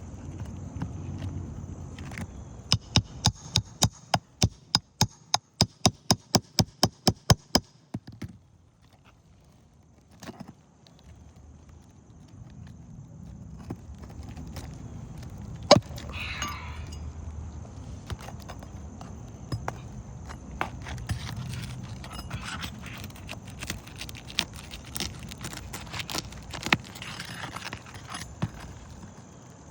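A metal roof snake worked under asphalt roof shingles to free the nails. First comes a run of about sixteen sharp, evenly spaced taps, about three a second, lasting some five seconds. After a pause there are scattered clicks and scraping against the gritty shingles.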